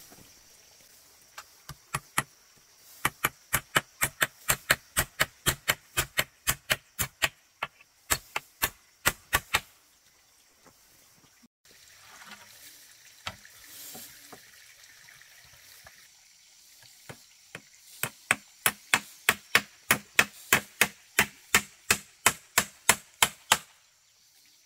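Repeated sharp chopping strikes, about three a second, in two runs of several seconds each with a quieter pause between.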